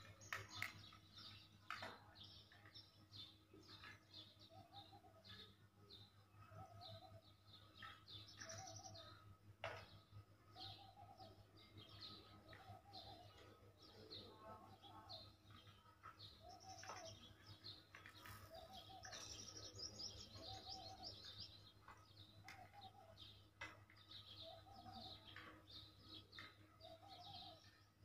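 Faint birdsong: many small birds chirping, with one bird repeating a short, low note about once a second.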